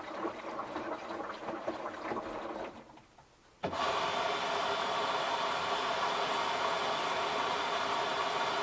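Samsung washing machine running at the start of a colour cycle with pre-wash. An uneven whirring sound lasts about three seconds and breaks off, then a louder, steady mechanical hum starts a little over three and a half seconds in.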